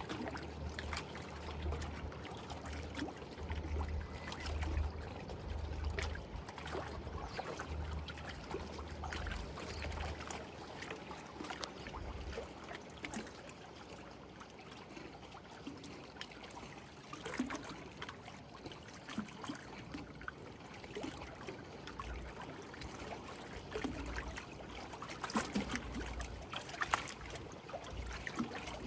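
Small lake waves lapping and sloshing against the shore, a steady watery trickle with many little splashes. A low rumble comes and goes underneath in the first third and again near the end.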